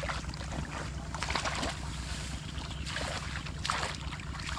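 Intermittent splashing and rustling as hands grope through shallow muddy water and grass, feeling for fish, in several short bursts over a steady wind rumble on the microphone.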